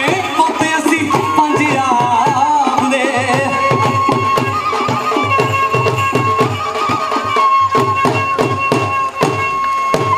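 Bhangra music: a fast, steady drumbeat under a high melodic line that holds long notes.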